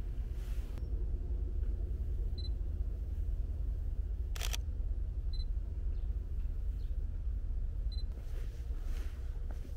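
Sony a7III mirrorless camera in use: three short, high focus-confirmation beeps spaced a few seconds apart, and one crisp shutter release about halfway through. A steady low rumble runs underneath.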